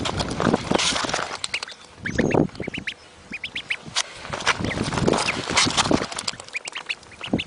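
Duckling peeping in quick runs of short, high, rising calls, over rushing wind on the microphone and footsteps.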